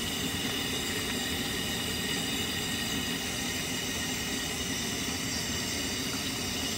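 Battered trout pieces deep-frying in a large karahi of hot oil: a steady sizzle of vigorously bubbling oil.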